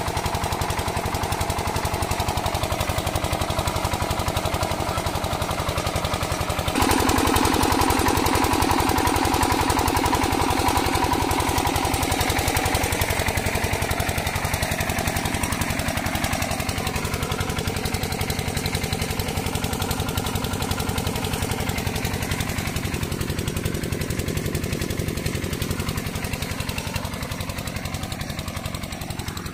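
Single-cylinder diesel pump-set engine (an 8 hp Bharat) running steadily with its rapid, even thumping exhaust beats, over the rush of water pouring from the pump's outlet pipe into the field channels. The water noise becomes louder suddenly about seven seconds in, and everything fades a little near the end.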